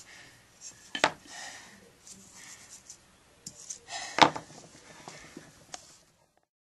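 A few knocks and clicks of a wooden hearth board and a knife being handled and set down on a wooden floor, with the loudest knock about four seconds in.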